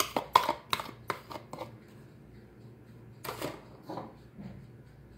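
A plastic container knocking and clicking against a stainless steel mixer-grinder jar as eggs are tipped in: a quick run of knocks in the first two seconds, then another clatter about three seconds in.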